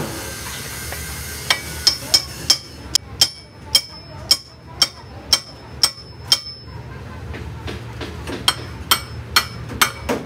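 Hammer striking steel in a steady series, about two blows a second, each with a short high ring. After a pause of about two seconds a few more blows follow near the end, over a low steady hum.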